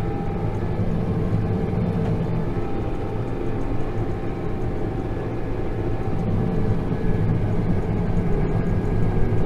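Tractor engine running steadily, pulling a working round baler: a constant mechanical drone.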